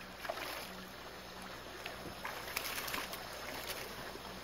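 Steady faint water and wind noise around a small fishing boat, with a few light ticks between about two and four seconds in.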